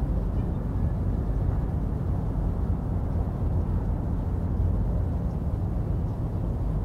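Steady low outdoor rumble, a deep unpitched background noise that wavers in level without stopping.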